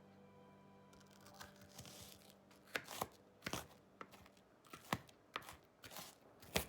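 Knife chopping on a cutting board: a run of sharp, irregular strokes beginning about a second and a half in, the loudest near the end.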